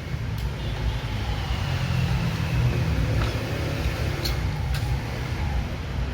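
Low, steady rumble of a running vehicle engine, with a few light clicks over it.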